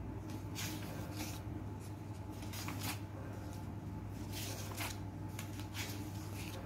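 Pages of a paperback question book being flipped by hand: a series of brief, irregular paper rustles, one per page turn, over a steady low hum.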